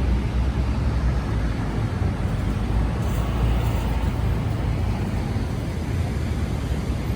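Steady city street traffic noise: a continuous low rumble with no distinct events standing out.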